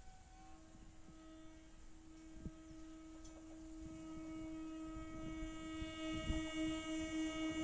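Horn of an approaching Indian Railways electric multiple-unit (EMU) local train, held as one long steady note that grows louder as the train draws closer.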